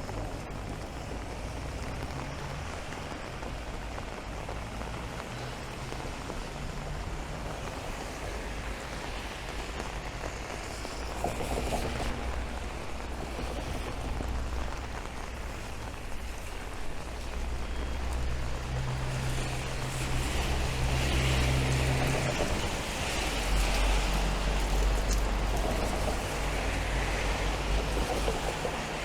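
Steady rain falling on a city street, with cars passing on the wet road. The engine hum and tyre hiss of traffic grow louder in the second half.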